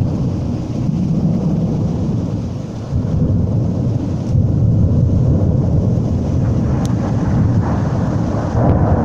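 Thunder rumbling continuously in a thunderstorm, a deep steady rumble that grows a little louder about four seconds in.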